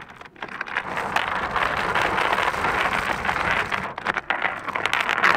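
Anchor chain running out over the bow as the anchor is let go: a dense metallic rattle for about three seconds, then a few separate clanks near the end.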